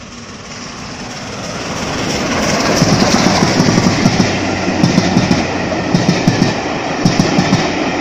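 The Flying Scotsman steam train passing over the level crossing: the rumble swells over the first three seconds as the locomotive arrives, then its carriages roll by with clickety-clack, clusters of wheel clicks on the rail joints about once a second.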